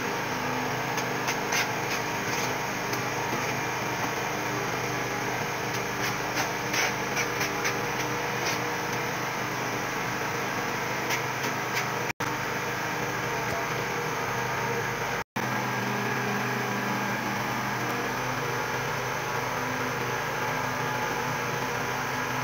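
Steady mechanical hum and hiss, with light clicks and scrapes over the first eight seconds as tile adhesive is spread across the back of a wall tile.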